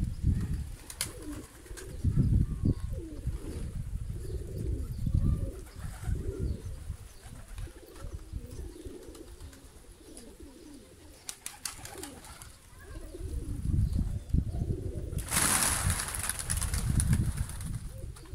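Domestic pigeons cooing repeatedly, with a short rush of noise about fifteen seconds in.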